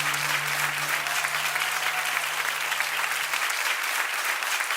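Audience applauding, a dense steady clapping over a held low note that fades out about three and a half seconds in.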